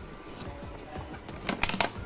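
Background music, with a rapid run of sharp clicks and taps starting about one and a half seconds in: small plastic dollhouse pieces being handled during unboxing.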